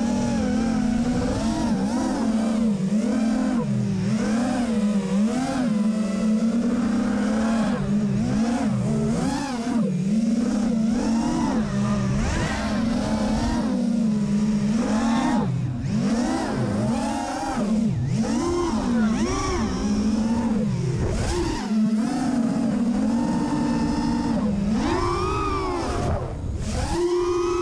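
Small FPV racing quadcopter (QAV210 with DYS 2205 2300kv brushless motors and three-blade 5-inch props) flying, its motor and propeller whine rising and falling in pitch over and over with the throttle. Near the end it climbs to a higher pitch and briefly drops away.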